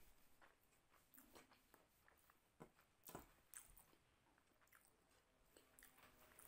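Faint eating sounds: irregular wet clicks and smacks of closed-mouth chewing and of fingers squeezing curry-soaked rice on a plate.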